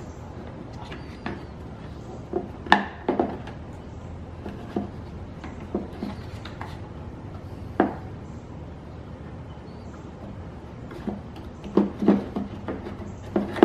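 Irregular clicks and knocks of the headlight's xenon ballast being worked loose by hand from the plastic headlight housing. The loudest come about three seconds in, near eight seconds, and in a quick cluster near the end.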